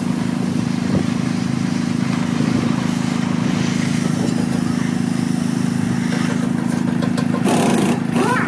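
An engine running steadily, a constant low drone.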